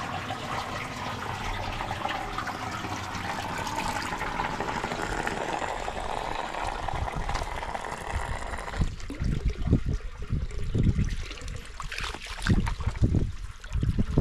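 Steady rush of running water, which cuts off abruptly about nine seconds in. Irregular low thumps follow.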